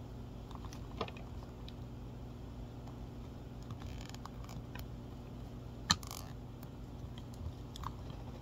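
Small plastic clicks and light handling rustles as fingers work the limbs of a small plastic doll figure, with one sharper click about six seconds in, over a steady low hum.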